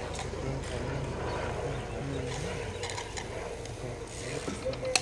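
Outdoor ambience of a bike polo game in play: a steady low rumble with a few faint knocks and clicks, and one sharper click at the very end.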